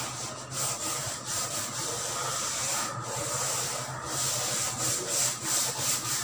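A board duster rubbing across a chalkboard, wiping off chalk in rapid back-and-forth strokes that become most distinct near the end.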